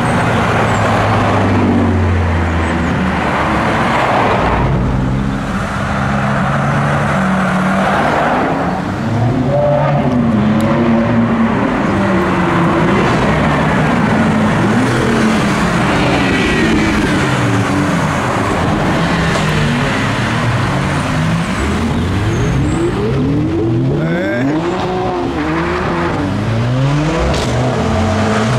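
Several cars drive past one after another, their engines revving again and again in rising and falling sweeps. The revs come in quicker, shorter blips near the end.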